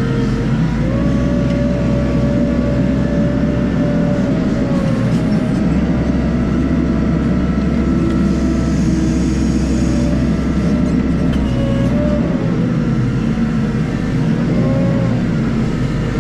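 Hitachi 120 wheel loader's diesel engine running steadily, heard from inside the cab, with a whine whose pitch wavers slightly as it drives with a loaded bucket.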